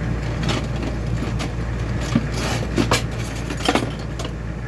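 Metal silverware clinking and rattling as it is handled and washed in a sink, a run of irregular sharp clinks that grow louder in the middle of the clip. A steady low hum runs underneath.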